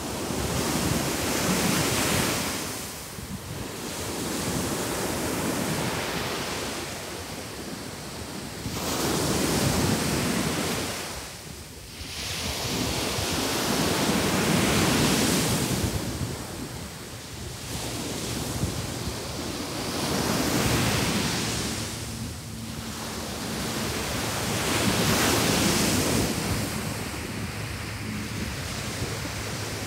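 Ocean surf washing onto a sand beach, swelling and fading in slow surges about every five to six seconds, with wind on the microphone.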